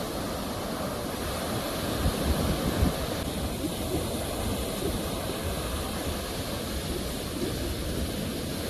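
Ocean waves breaking: a steady hiss of surf over a low rumble, swelling louder about two to three seconds in.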